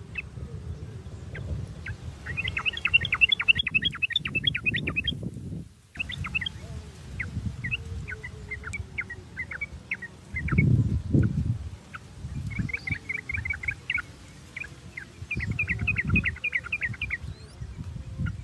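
Yellow-vented bulbul (trucuk) calling: three quick runs of sharp chattering notes, about ten a second, with scattered single notes between them. Under the bird there is a low rumbling noise, loudest about ten seconds in.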